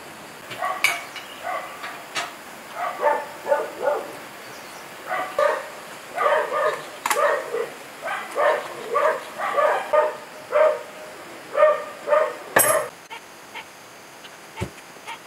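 A dog barking repeatedly, short barks coming about one or two a second, which stop about three-quarters of the way through. A few sharp clicks sound among the barks, the loudest just after the barking ends.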